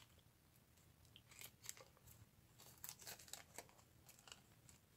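Faint, scattered crinkles of a small plastic bag and light clicks of small buttons being handled, over near silence.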